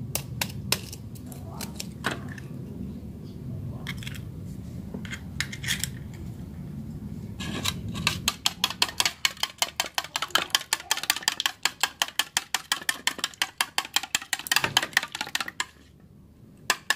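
A metal spoon taps a chicken egg a few times to crack it, then beats the egg in a ceramic bowl. The beating is a fast run of clinks against the bowl, from about seven seconds in until near the end.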